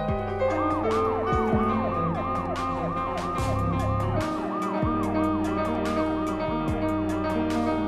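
A fast yelping siren, rising and falling about three times a second, starting about half a second in, over a music track with held notes and regular drum hits.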